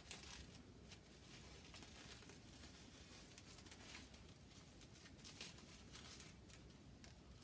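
Faint crinkling and rustling of paper and plastic wrapping being unwrapped by hand, in small irregular crackles.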